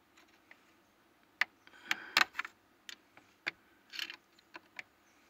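Small flathead screwdrivers clicking and scraping on the retaining ring and steering column shaft as the ring is pried up: a run of irregular light metal ticks and taps.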